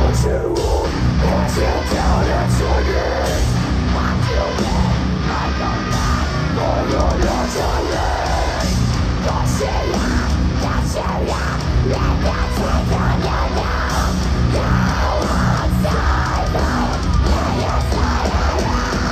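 Heavy metal band playing live at full volume, heard from the crowd: distorted guitars and drums with shouted vocals.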